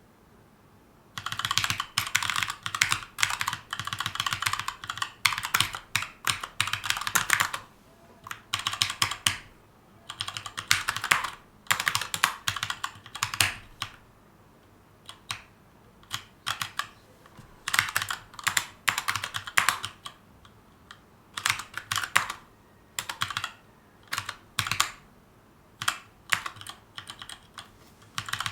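Typing on a Keychron K2 mechanical keyboard with brown tactile switches. Bursts of rapid keystrokes with short pauses between them start about a second in.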